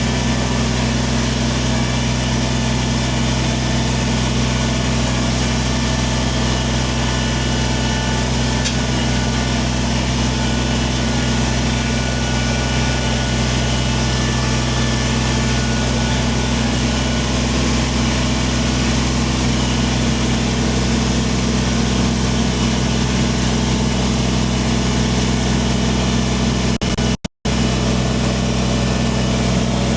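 Kubota compact tractor's diesel engine running steadily at constant speed while it works stone with its loader. The sound drops out for an instant near the end.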